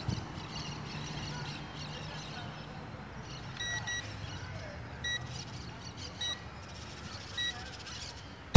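Faint outdoor background noise with a low hum, broken from about three and a half seconds in by half a dozen short high-pitched peeps, some in quick pairs.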